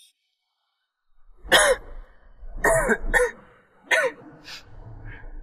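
A man coughing four times, starting about a second and a half in, the coughs coming roughly a second apart.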